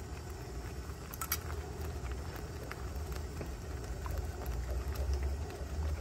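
A few faint taps of a spoon against a cooking pan, the clearest a quick pair about a second in, as yogurt is stirred into the curry sauce, over a steady low hum.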